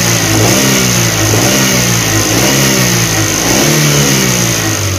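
Suzuki APV's four-cylinder petrol engine revved up and down about four times in quick throttle blips. It rises and falls smoothly, the misfire and shaking cured after the repair.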